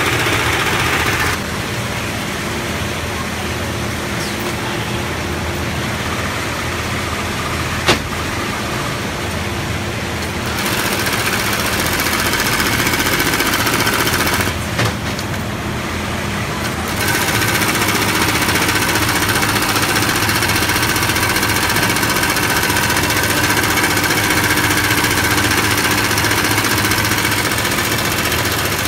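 Keestar LoopSEW65 automatic loop attaching sewing machine running at speed, stitching webbing onto woven polypropylene bag fabric. It stops and starts several times, leaving a lower steady machine hum between runs, with one sharp click about eight seconds in.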